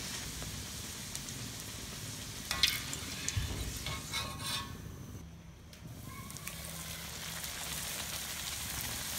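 Hot oil sizzling as poori deep-fries in a metal kadai, with a few sharp metal clicks and scrapes of the slotted spoon against the pan around the middle as the puffed poori is lifted out. The sizzle drops briefly, then picks up again as the next poori goes into the oil.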